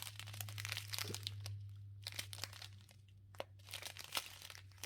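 Small plastic packets of diamond painting drills crinkling and crackling as they are handled and sorted, over a steady low hum.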